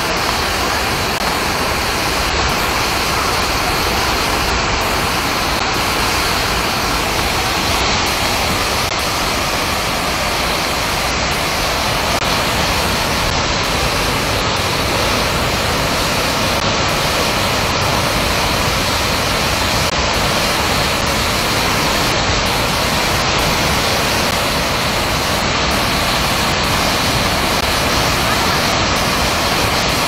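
Waterfall in flood after a heavy storm: a loud, steady rush of swollen, muddy water pouring down into a churning torrent.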